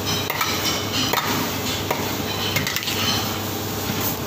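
Metal spatula scraping and clattering against a wok while stir-frying noodles, with repeated short clicks and scrapes over a steady hiss.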